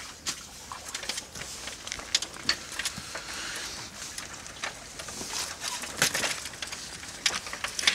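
Handling noise: scattered clicks, knocks and rustling as a duck is held and a plastic crate is handled, with one louder knock about six seconds in.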